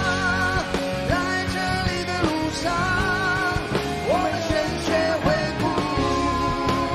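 Live rock band: a high male voice sings long held notes with vibrato over acoustic and electric guitars, bass and drums.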